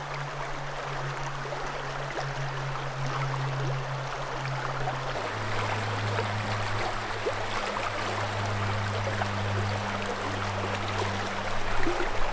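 River water rushing in a steady wash, with a low steady hum underneath that drops in pitch about five seconds in.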